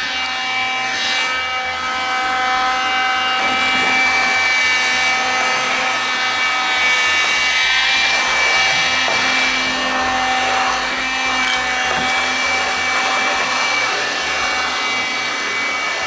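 Kitfort KT-529 handheld cordless vacuum cleaner running steadily while being used: a very loud, even motor whine over rushing air.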